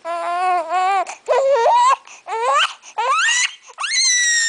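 A seven-week-old baby fussing and crying in a series of short wavering cries, the last one a longer, much higher squeal near the end. His mother takes it for hunger and offers milk.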